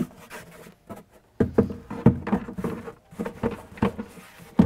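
Hollow knocks and bumps of a moulded plastic aftermarket cold-air-intake airbox being set down and pushed into its seat in a pickup's engine bay, a run of irregular thuds starting a little over a second in.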